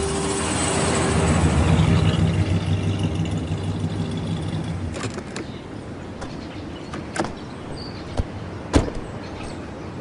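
A car drives up and comes to a stop. Its engine and tyre noise swells in the first couple of seconds and dies away by about five seconds in. Then come a few separate clicks and knocks from the car door.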